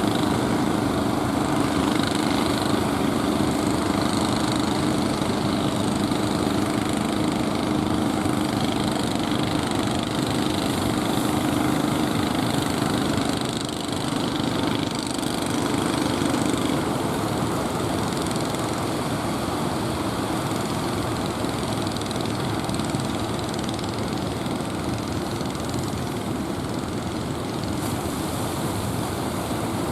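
An engine running steadily, its hum strongest in the first half and fading away a little past halfway, over a constant rush of surf.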